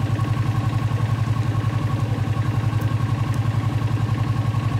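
Yamaha Exciter 135's single-cylinder four-stroke engine idling with a steady, even beat.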